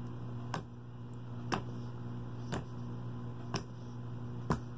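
Sharp, evenly spaced clicks, about one a second, over a low steady hum.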